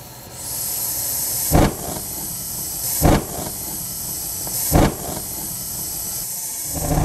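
A row of gas burners lighting from a pilot flame, then burning with a steady gas hiss. Three short thumps come about a second and a half apart.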